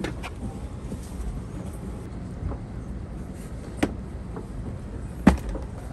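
Plastic seatback tray table on a Shinkansen seat being lowered and tilted, giving a few sharp clicks, the loudest near the end, over the steady low rumble of the train.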